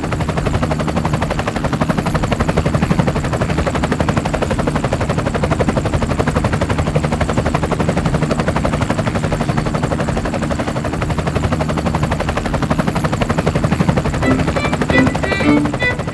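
Small off-road vehicle's engine running steadily with a rapid pulsing beat as it drives along a dirt track. Fiddle music comes in near the end.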